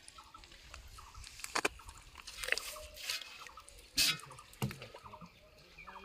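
A few sharp little splashes and drips of water at the water's edge, stirred by hands; the loudest comes about four seconds in.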